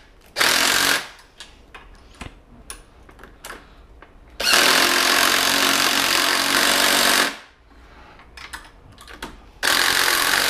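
Cordless impact driver with a socket running on a bolt in three bursts: a short one, a long one of about three seconds, and another short one near the end.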